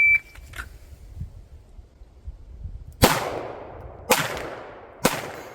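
A shot timer's start beep, then three pistol shots about a second apart, each trailing off in a long echo, fired from the draw at a steel target.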